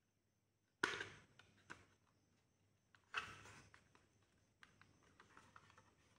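Orange plastic casing of a digital multimeter being handled: two sharp plastic knocks, about a second in and about three seconds in, with lighter clicks and rattles between and after.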